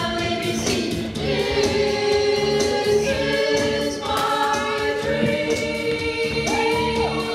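A choir singing, several voices holding long sustained notes together.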